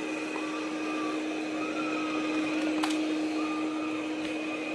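Robot vacuum cleaning a carpet in spot mode, its motor a steady hum with a high whine and a wavering tone that comes and goes, with one sharp click about three seconds in.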